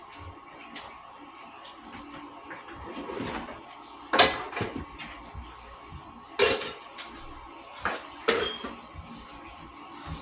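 Kitchen dishes clattering as they are moved about in a search for a bowl, with a few sharp knocks that ring briefly. The loudest comes about four seconds in, with others near six and eight seconds.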